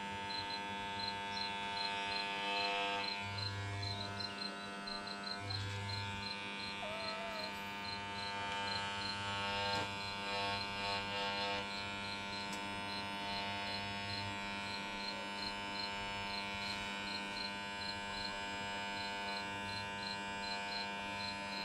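Corded electric pet clipper running with a steady hum while clipping a cat's long fur.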